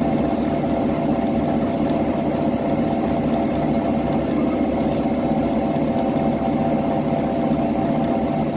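Diesel engine of a 2010 Nova Bus LFS articulated city bus running steadily as a constant low drone with a hum, with no revving or change in pitch.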